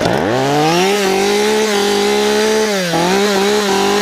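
Chainsaw engine revved up hard in the first second, held at high speed, with a brief dip in revs about three seconds in before climbing back.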